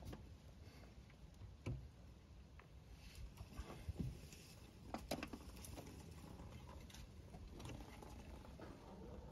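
Faint, scattered metal clicks and taps of a two-jaw claw-type oil filter wrench being fitted and worked on a spin-on oil filter, at irregular intervals.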